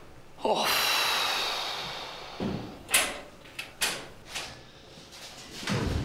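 A heavy metal door being opened, starting with a sudden loud scraping clang that rings and fades over about a second and a half. Several sharp metallic clicks and knocks follow, like a lock and bolt being worked, with a duller thud near the end.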